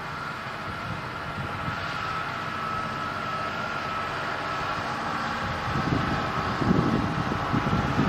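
Dewulf R3000 self-propelled potato harvester running in the field: a steady engine-and-machinery noise with a thin, even whine on top. Near the end a louder, rougher low rumbling builds up.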